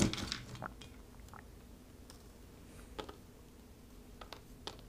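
Scattered light clicks and taps from cards and game pieces being handled on a tabletop, several in the first second and a few more spaced out after.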